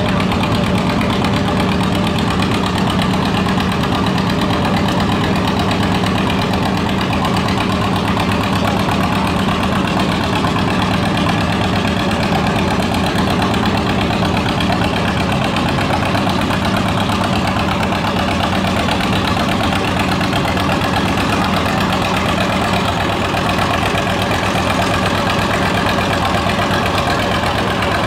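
Antique John Deere two-cylinder tractor engine running steadily at a slow, even speed.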